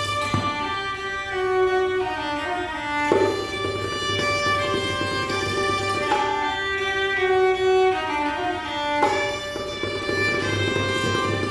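Violin playing a melody live, notes held about half a second to a second each.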